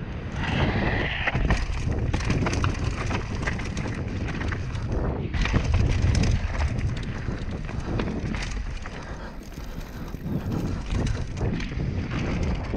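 Downhill mountain bike descending a rocky dirt trail: wind buffets the helmet-camera microphone while the tyres roll over loose gravel and the bike rattles with many sharp clicks.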